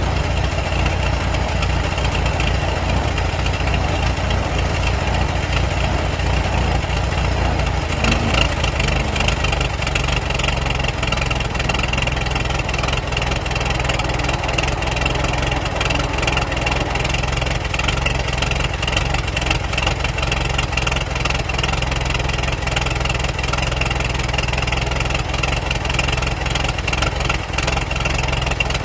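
Old car engine idling steadily, with a brief blip in level about eight seconds in.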